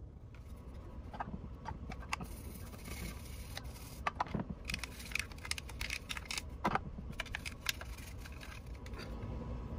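Toothbrush scrubbing a clear plastic toy-truck part in soapy water over a glass dish: irregular scratchy brushing with light clicks and knocks, busiest in the middle.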